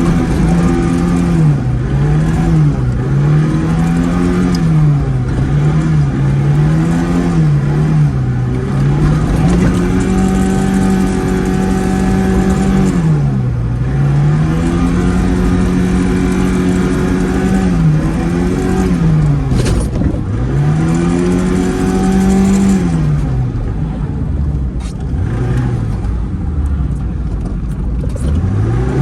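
Zhiguli's four-cylinder engine revving up and down again and again while the car is drifted on snow. The revs rise and drop every second or two, with longer holds at high revs in the middle stretch. A single sharp click comes about twenty seconds in.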